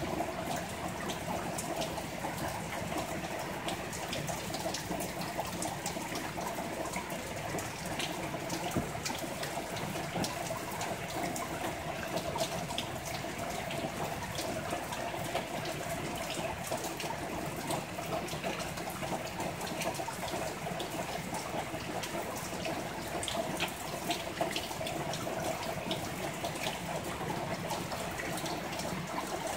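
Heavy rain pouring steadily, with many sharp drop hits ticking through it.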